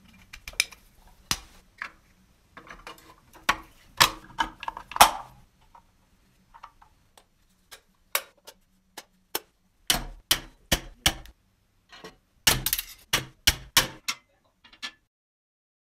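Sharp, irregular clicks and clacks of metal and plastic toy-truck parts being handled and fitted together, some in quick clusters, stopping about a second before the end.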